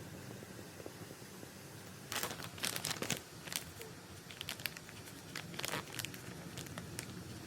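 Packaging crinkling and rustling as it is handled by hand, in a few short clusters of crackles starting about two seconds in, with scattered small clicks afterwards.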